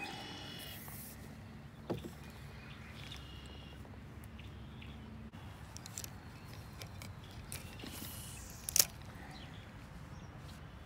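Quiet outdoor pond sound from a canoe: a few short, faint bird chirps in the first few seconds over a low steady hum, with a small knock about two seconds in and a sharper knock near the end.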